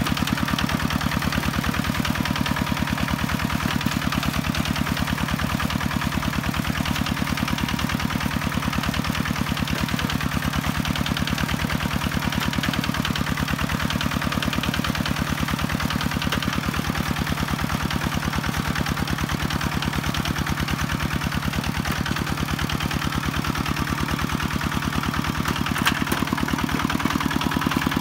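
Two-wheel walking tractor's single-cylinder diesel engine running steadily under load with a fast, even firing beat as it drives its cage wheels and plough through flooded paddy mud.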